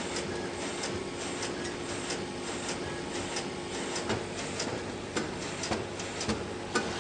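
Print-finishing machine running: a steady mechanical hum with continual light clicking and clattering, and a few sharper clacks in the last three seconds.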